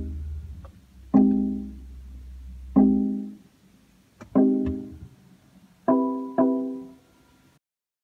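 BMW i3 dashboard gong chiming five times, each a single bell-like tone that rings and fades, the last two in quick succession, sounding as check-control warnings come up, including the notice that the range extender's maintenance cycle will start shortly. A low hum lies under the first three seconds.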